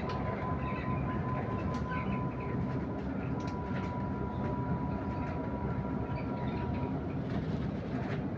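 Electric bus on the move, heard from inside the cabin: a steady low road and tyre rumble with a thin, steady whine that fades out about seven seconds in, plus a few faint clicks and rattles.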